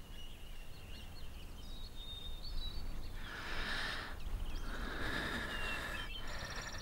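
Open-field ambience: faint bird chirps over a low steady background, with two soft rushes of noise about three and five seconds in. Near the end an insect begins a fast, high trill.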